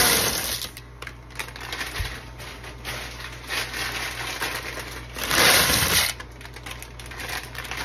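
Dry egg noodles poured from a plastic bag into a pot of boiling water: a loud rustling rush at the start and again about five seconds in, with scattered clicks of falling noodles and the bag between.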